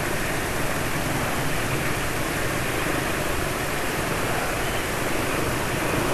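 Steady road noise while riding a motor scooter in slow, dense traffic: an even rush of engine and traffic sound with no distinct events.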